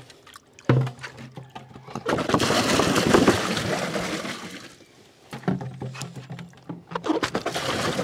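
Water poured from plastic pots into plastic fridge-box tanks, splashing onto the water already in them, in two pours with a short break near the middle. A knock sounds about a second in.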